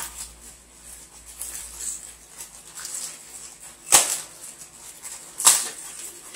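Clear plastic packaging bag rustling and crinkling as it is pulled open by hand, with two sharp snaps, one about four seconds in and another a second and a half later.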